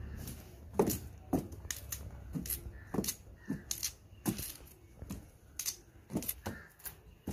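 Bunches of bananas being handled and set down into a cardboard box: a dozen or so irregular knocks and rustles.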